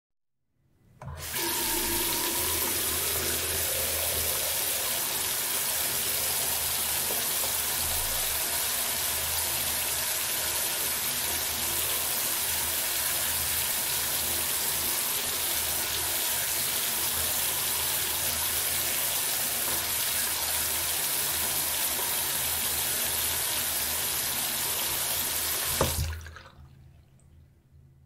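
Bathroom sink tap running steadily, water splashing into the basin as an even hiss. It starts about a second in and stops near the end with a sharp knock, then trickles away over a second or so.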